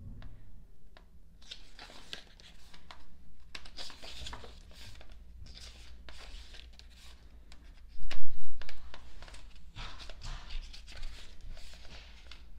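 Pages of a thick album photo book being turned and handled, paper rustling and crinkling in short bursts. About eight seconds in comes a much louder low thump.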